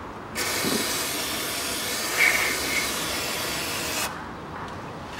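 Aerosol can of carburettor cleaner sprayed through its straw nozzle in one steady hiss, starting about half a second in and cutting off about four seconds in, washing spilled oil off around an oil filter.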